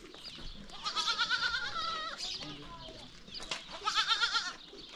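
A goat bleating twice with a quavering pitch, a long call about a second in and a shorter one near the four-second mark.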